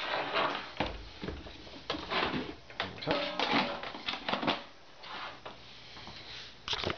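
Plastic air fryer housing and basket drawer being handled and pushed back together: a run of irregular clicks, knocks and clunks, with a duller thump about a second in and a quick cluster of sharp clicks near the end.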